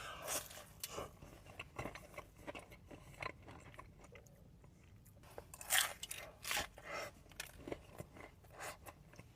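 Crisp samosa pastry crunching in short, irregular crackles, with chewing, close to the microphone; the loudest crunches come a little past the middle.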